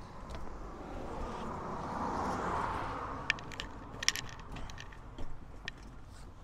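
Folding steel-framed camp cot being handled as it is unfolded and tipped down: a swelling rustle, then a few sharp metallic clicks, the loudest about four seconds in.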